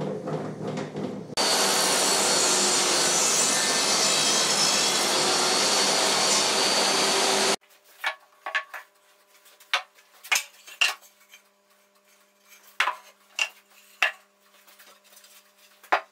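Table saw, its blade tilted for a bevel, cutting through a wooden shelf board: a loud steady cutting noise for about six seconds that stops abruptly. After it, a series of short wooden knocks as boards are set down on a workbench.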